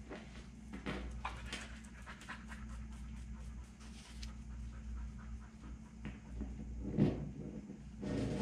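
Light clicks and rattles of small metal parts being handled: a dimple die and a rivet being fitted through a hole in a thin aluminium skin, over a steady low hum. A louder, short sound comes about seven seconds in.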